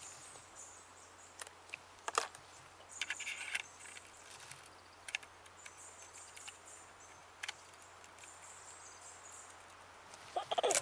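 Quiet handling of a rifle scope being set onto the rifle's top rail: a few scattered clicks and knocks, the sharpest about two seconds in, a small cluster around three seconds and another near the end. Faint high chirping runs steadily in the background.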